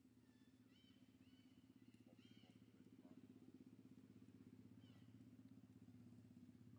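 Near silence with a faint, steady, pulsing low hum like a distant idling engine, and a few faint short high chirps.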